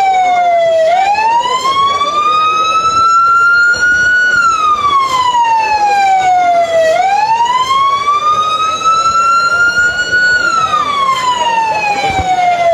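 Fire truck siren wailing, its pitch sliding slowly up and down in a loud, even wail, about one rise and fall every six seconds.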